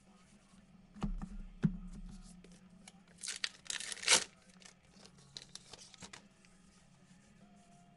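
Two knocks, then a trading-card pack's wrapper torn open in one rasp of about a second, followed by light crinkling and small clicks as the cards are handled.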